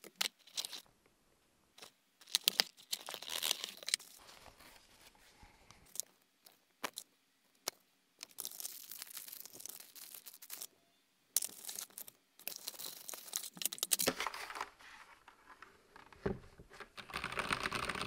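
Unboxing handling noises: plastic bags rustling, crinkling and tearing, with scattered clicks and knocks of parts and packaging. Near the end, fast typing on a mechanical keyboard with brown switches begins.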